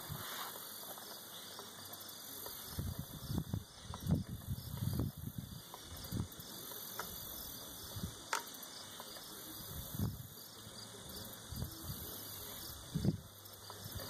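Steady chirring of insects such as crickets, with irregular low thumps and rumbles that are loudest about four seconds in and again near the end.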